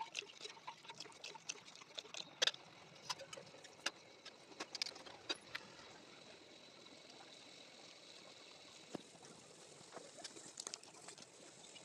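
Sugar syrup simmering quietly in a steel pot, with scattered small pops and clicks that thin out after about six seconds and pick up again faintly near the end.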